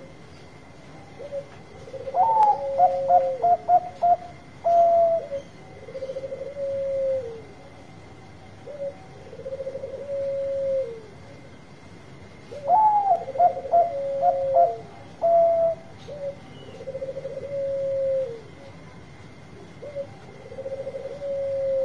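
Zebra dove (Bangkok perkutut) singing: two loud, stuttering song phrases about ten seconds apart, among softer rolling coos that end in a falling note and recur every few seconds. A faint steady high tone runs underneath.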